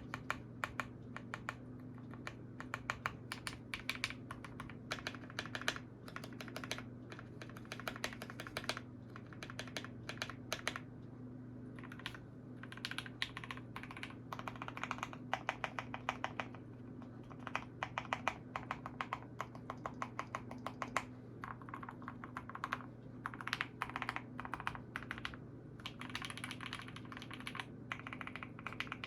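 Fast typing on a custom KBD75 v3 mechanical keyboard with POM Glacier Panda switches and a polycarbonate plate: a dense run of key clacks with short pauses, over a steady low hum.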